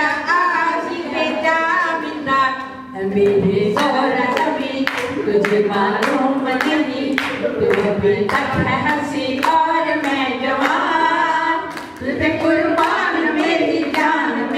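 A group of people singing a song together, with hand claps keeping a steady beat of about two a second from about four seconds in.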